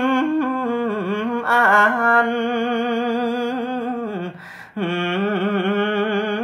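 A man's voice chanting Khmer smot, the melismatic sung recitation of Buddhist verse, in long held notes that waver in pitch. There is a short break for breath about four and a half seconds in.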